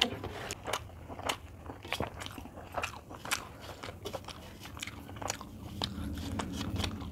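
Close-up eating sounds: fingers mixing and squeezing rice with chicken curry on a metal plate, and chewing, heard as a string of irregular small wet clicks and crunches.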